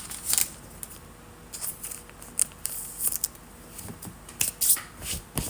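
Trading cards and pack wrappers being handled at a box break: a run of short, irregular swishing and rustling strokes as cards are slid and pulled from the pack.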